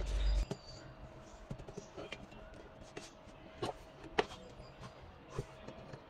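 Scattered light clicks and knocks from a metal tortilla press and a ball of dough being handled on a stone counter, over a faint steady hum.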